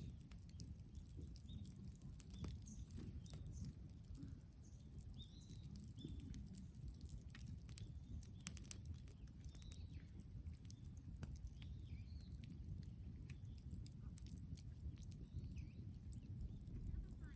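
Brush bonfire crackling, with irregular small pops and one sharper snap about halfway through, over a low steady rumble. Faint bird chirps now and then.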